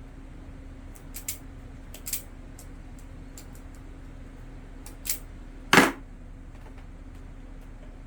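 A few sharp clicks and snaps, with one louder clack a little before the six-second mark, from small tools and fan parts being handled during a capacitor replacement, over a steady low hum.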